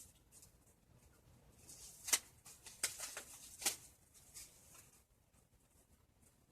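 Faint rustling and a few sharp clicks of packaging and ties being handled while freeing a doll's bound hands and feet, the loudest clicks about two seconds in and a cluster a second later.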